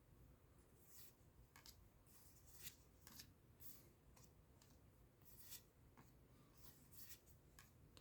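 Faint, scattered flicks and scrapes of trading cards being handled and slid against one another.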